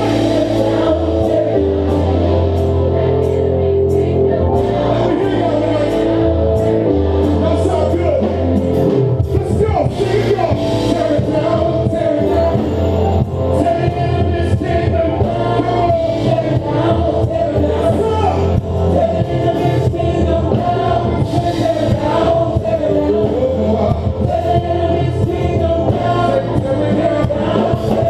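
Live gospel worship music: a choir singing over a band with steady bass and drums.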